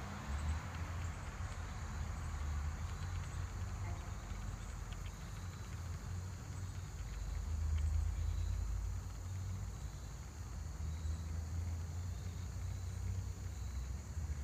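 Outdoor background sound: a steady low rumble with faint high, steady insect chirring above it.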